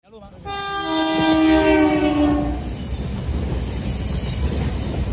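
Taiwan Railway diesel locomotive's horn sounding one chord for about two seconds, dipping slightly in pitch, then the low rumble of the train running past.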